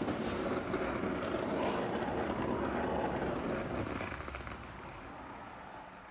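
Gas torch flame burning steadily as it heats a steel two-stroke expansion chamber, dying away about four seconds in.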